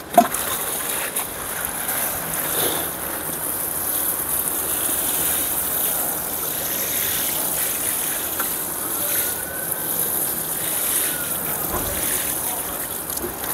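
Water pouring steadily from a plastic watering can onto soil around freshly transplanted corn seedlings.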